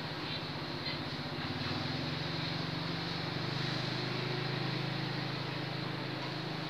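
Diesel railcar's engine idling with the train standing still: a low, pulsing drone that grows a little louder about three seconds in.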